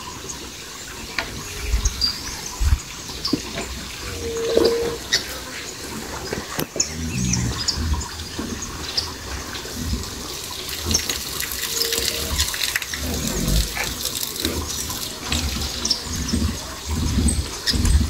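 Cattle in a corral, with a short low moo about seven seconds in and scattered high bird chirps over a low rumbling background.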